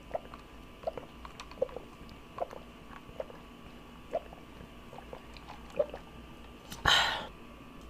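A person drinking through a straw, swallowing in soft gulps about once every three-quarters of a second, then a loud breath out about seven seconds in after the straw leaves her lips.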